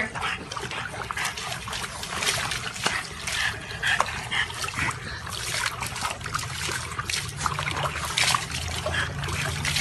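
Water splashing and sloshing in a plastic tub as a French bulldog thrashes about in it, throwing water over the rim onto the concrete.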